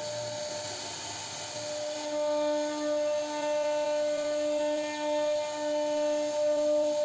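CNC router spindle running at a steady high-pitched whine as it carves a wooden door panel, with a hiss of cutting noise that swells and eases slightly from about two seconds in.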